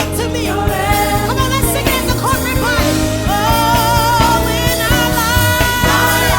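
Worship song: a singer holding long notes with vibrato over steady instrumental backing.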